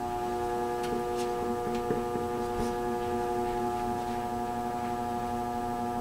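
ILG WindowAire box fan running on low, its shaded-pole motor giving a loud, steady hum while the blade is silent. A few faint ticks sound over the hum in the first few seconds. The owner finds the motor abnormally loud and says it almost sounds like something is loose.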